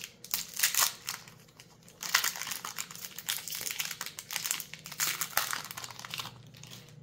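Foil wrapper of a Magic: The Gathering collector booster pack crinkling as it is handled and opened. A few bursts come in the first second, then a lull, then continuous crinkling that fades out about a second before the end.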